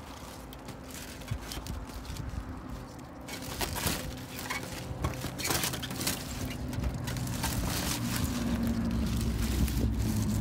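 Bramble stems and leaves rustling, snapping and crackling as someone pushes and steps through a thick thorny bush, the crackling growing busier after the first few seconds. A low hum comes in and grows louder near the end.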